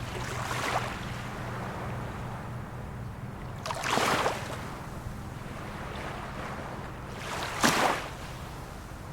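Small waves of a calm sea breaking and splashing on the shore, three splashes a little over three seconds apart, over a steady low rush of water.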